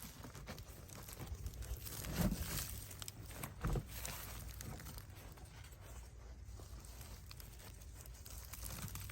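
Hands digging and sifting through loose potting soil to pull sweet potatoes. Soft rustling and crunching of soil and roots, with a couple of dull thumps about two and three and a half seconds in.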